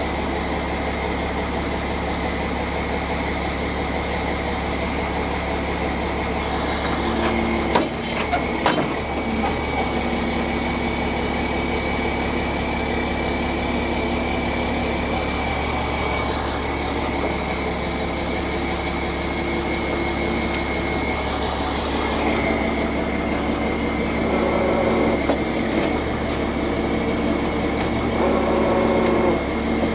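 Heavy tow truck's engine idling steadily, with a few clicks about eight seconds in.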